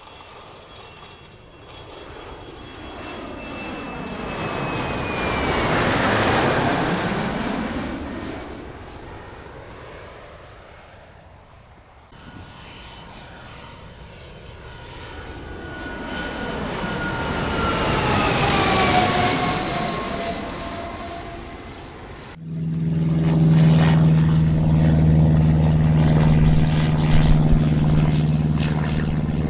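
Jet airliner passing overhead twice, each time swelling to a peak and fading away as its whine drops in pitch. About 22 seconds in, a sudden cut to a louder, steady low aircraft engine drone.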